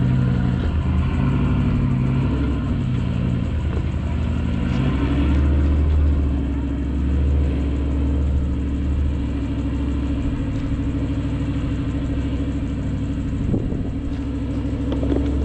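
A four-wheel drive's engine running with a deep hum that rises and falls in pitch a few times as the throttle changes, with a short knock near the end.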